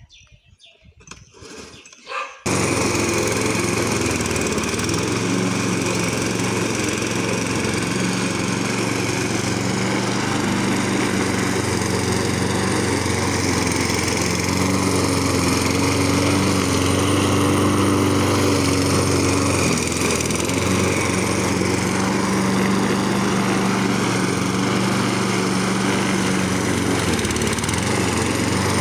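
A gasoline walk-behind rotary lawn mower engine starts suddenly about two seconds in, then runs steadily as it is pushed through long grass.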